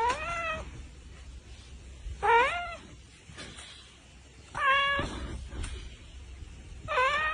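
Domestic cat meowing four times, evenly spaced about two seconds apart; each meow is short, with its pitch rising at the start.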